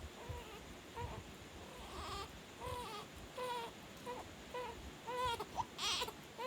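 A baby fussing: a string of short whimpering cries, one after another every half second or so.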